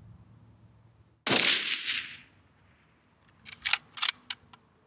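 A single rifle shot from a prone bolt-action rifle about a second in, its report rolling away over about a second. Near the end, a quick run of five or six sharp clicks.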